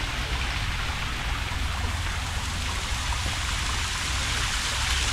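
Steady rushing of running water, an even hiss like a stream or rain, with a low rumble beneath it.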